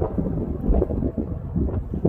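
Wind buffeting the microphone over the rumble of a passing diesel freight train, right after the locomotive's horn cuts off.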